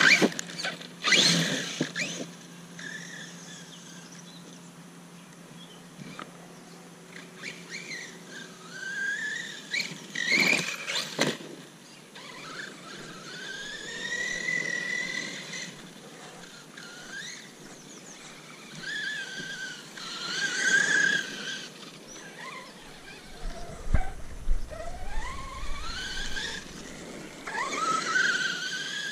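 Electric Redcat Landslide RC monster truck running on grass: the whine of its motor and drivetrain rises and falls with each burst of throttle. A few sharp knocks come near the start and about ten seconds in.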